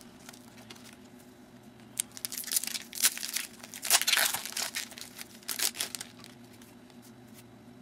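Foil wrapper of a Topps UFC trading-card pack crinkling and tearing as it is opened by hand, in scattered crackly bursts for about four seconds, loudest near the middle.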